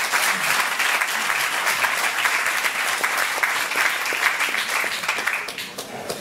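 An audience applauding, dying down near the end.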